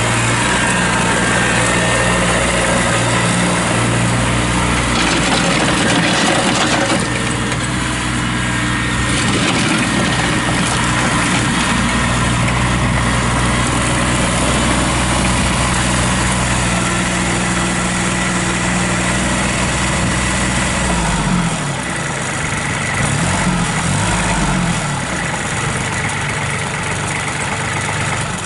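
1999 Kubota B2400 compact tractor's three-cylinder diesel engine running hard as the tractor is driven about in snow. Its pitch drops and rises again near the end as the engine speed changes.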